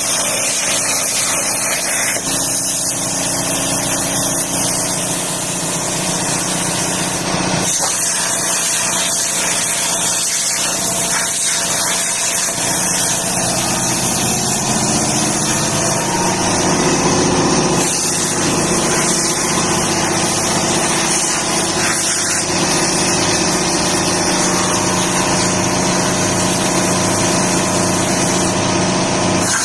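Plasma cutter on a home-built CNC table running: a steady loud hiss over a steady machine hum.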